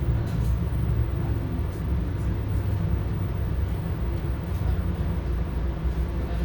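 Steady low rumble inside a moving New Jersey Transit Comet 2 commuter coach: wheels on the rails and the car's running noise, with faint light clicks now and then.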